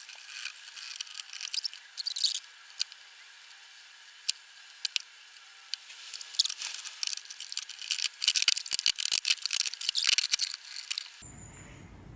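Glue being spread on the wooden joints of a door frame: irregular light scraping, smacking and clicking, busiest in the last few seconds. Near the end it gives way abruptly to a low steady hum.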